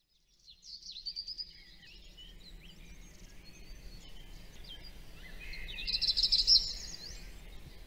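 Birds chirping and singing, many short quick notes over a faint low steady background noise, with the birdsong loudest about six seconds in.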